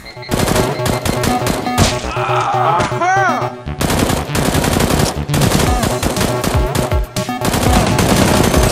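Rapid automatic gunfire sound effects, dense bursts of shots running through, laid over electronic background music, with a short whistling glide about three seconds in.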